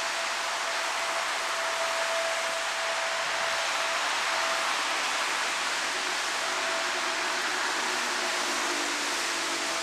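Steady rain hiss. In the last few seconds a faint low hum comes in from an approaching electric train.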